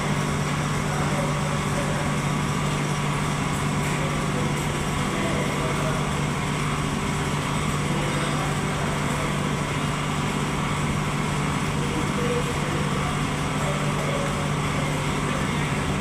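Steady hum of large commercial kitchen machinery running, a constant low drone with an even wash of mechanical noise over it.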